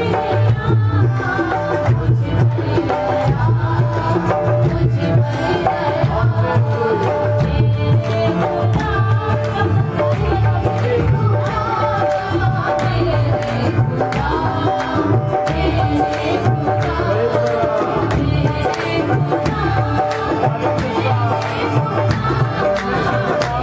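Devotional song sung by a group through microphones, one lead voice with others joining, amplified, accompanied by a harmonium's held notes and a hand drum keeping a steady beat.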